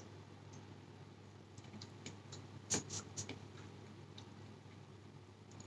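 A few faint, sharp clicks and taps from eating with a metal spoon out of a plastic tub, a small cluster of them near the middle, over quiet room tone.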